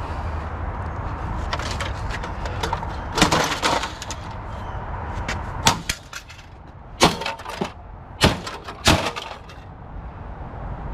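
A large network printer being pulled apart for scrap: a string of sharp cracks and knocks as its parts are pried and snapped loose, the loudest several seconds in, over a steady low rumble that drops away about halfway through.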